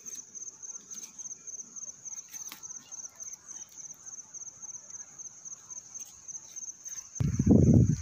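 A cricket chirping steadily in a rapid, even, high-pitched pulse. Near the end a loud low rumble cuts in over it.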